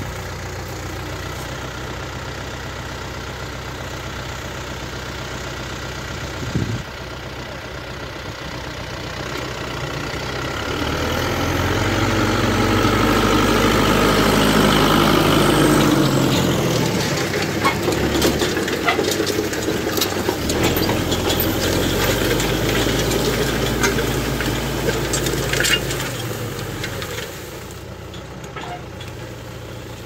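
Massey Ferguson farm tractor's diesel engine running steadily while pulling a disc harrow through field soil. The engine grows louder about a third of the way in, then eases off near the end. Scattered knocks and clicks are heard through the louder middle stretch.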